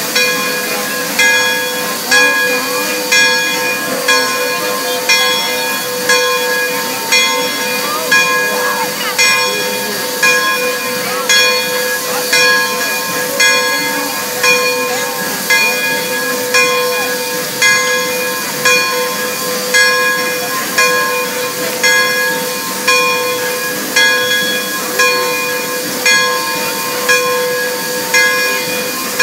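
A bell rings steadily about once a second over a continuous hiss of steam from the standing Pere Marquette 1225 steam locomotive.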